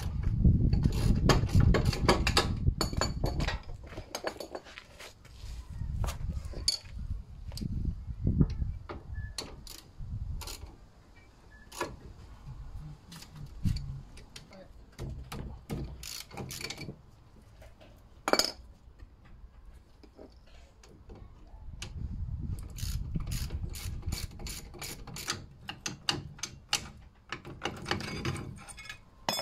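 Socket ratchet wrench clicking in quick runs as bolts at a car's front wheel hub are worked, with scattered sharp metal clinks between the runs.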